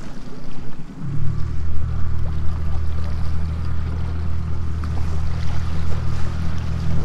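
Boat engine rising in revs about a second in, then running steadily at a constant low pitch while the boat is under way.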